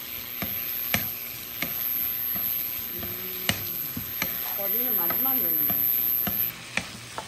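Sliced zucchini sizzling as it stir-fries in a nonstick frying pan. A wooden spatula stirs it, tapping and scraping against the pan about once a second.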